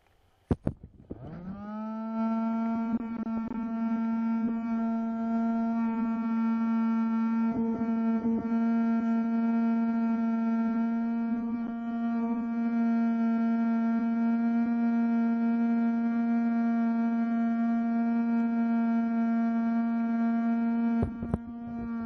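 Small electric fan switched on with a click, spinning up to a steady high hum with many overtones. Near the end it is switched off and winds down, its pitch sliding down as it slows.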